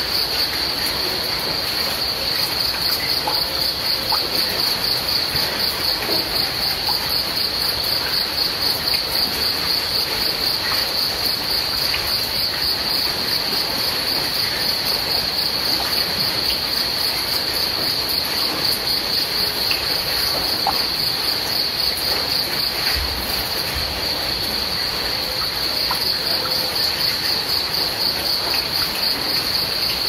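Crickets chirping in a continuous, rapidly pulsing high trill, over a steady hiss.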